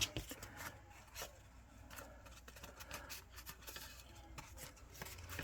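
Layers of cardstock being handled, lined up and pressed together by hand: faint scattered taps and rustling paper rubs.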